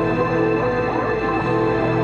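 Background music: a steady track of held notes with a few sliding tones over them.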